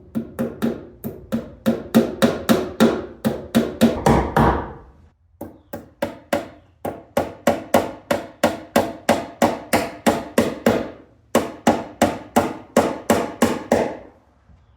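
A hammer striking repeatedly and fast, about four blows a second, in three runs with short pauses about five and eleven seconds in.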